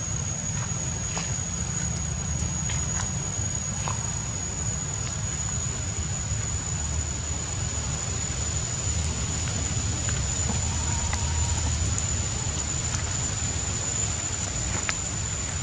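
Steady insect drone: one unbroken high-pitched tone over a low, rumbling outdoor background, with a few faint clicks.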